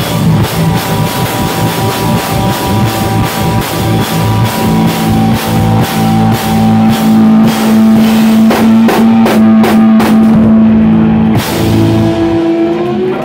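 Live rock band playing loud, with drums hitting a fast steady beat under bass and electric guitar holding a long chord. Near the end the beat stops, a final crash comes, and the last chord rings out.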